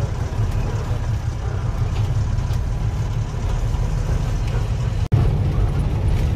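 Truck engine and road noise heard from inside the cab while driving: a steady low rumble. It drops out suddenly for an instant about five seconds in.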